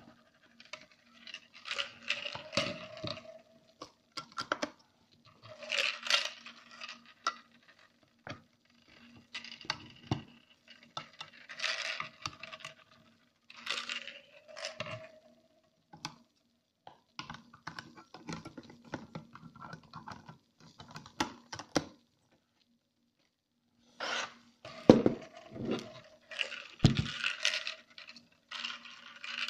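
Hard plastic parts of a full-face snorkel mask and its snorkel tube being handled and turned over by hand: irregular bursts of scraping, clicking and rustling, with a pause of about two seconds partway through.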